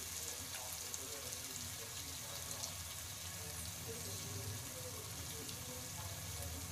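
Chicken and tomato masala sizzling steadily in a nonstick pan, with a few faint pops, while a dollop of curd sits on top unstirred.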